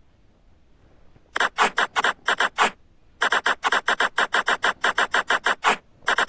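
Cartoon sound effect of a marker pen tracing a line: quick scratchy scribble strokes, about six a second. They come in three runs with short pauses between, the first starting a little over a second in.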